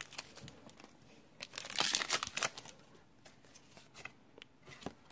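Foil wrapper of a trading-card booster pack crinkling for about a second, about a third of the way in, followed by a few soft clicks of cards being handled.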